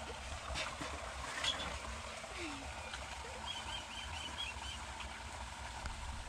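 Water running steadily along a narrow brick-lined water channel, with a bird giving a quick run of about six short chirps about three and a half seconds in.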